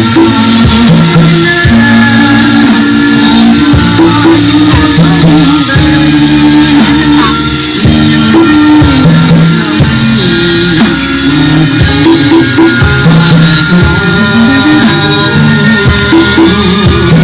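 Loud music with drums and percussion over low notes that step from pitch to pitch.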